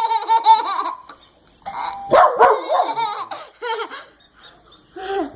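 Dogs barking and yelping in three clusters of bending, high calls, set off by the doorbell.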